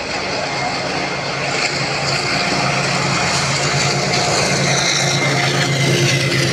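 Indian Railways WDG4G diesel locomotive hauling a container freight train approaches at speed, its engine drone growing steadily louder as it draws near and passes.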